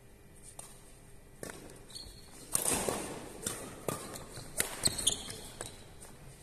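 Badminton rally: a string of sharp racket hits on the shuttlecock, the loudest about two and a half seconds in, with short shoe squeaks and footsteps on the court floor.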